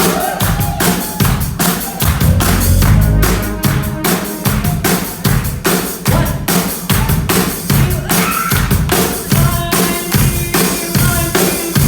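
A live band playing a drum-driven song: the drum kit beats out a steady rhythm of kick drum and snare, with sustained pitched instruments underneath.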